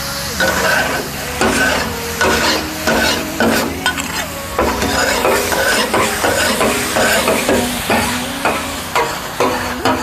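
Two flat metal spatulas scraping and clanking against a large steel tawa in quick strokes, about two a second, each with a short metallic ring, over the sizzle of freshly added yogurt frying in the chicken kabab masala.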